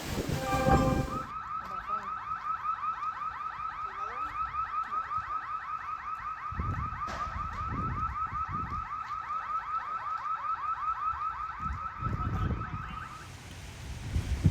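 Car alarm sounding a fast, evenly repeating warbling chirp that cuts off suddenly near the end, with gusts of wind on the microphone.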